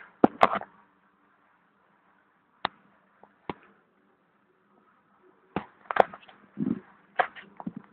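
Irregular sharp clicks and knocks with some rustling: a cluster just after the start, a few single clicks a couple of seconds later, and a denser run through the second half, over a faint steady hum.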